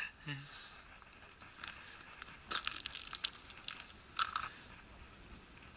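Faint crinkling and crunching rustles in a few short clusters, from hands and jacket sleeves working close to the microphone while threading bait onto a small ice-fishing jig.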